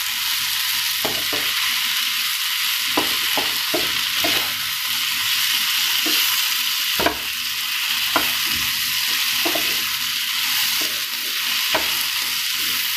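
Fried chicken pieces, onion and capsicum sizzling in sauce in a pan over a high flame while a spatula stirs them, with scattered light taps and scrapes of the spatula against the pan, the sharpest about halfway through.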